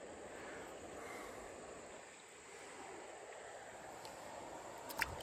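Faint, steady hiss of flowing river water, with a short click near the end.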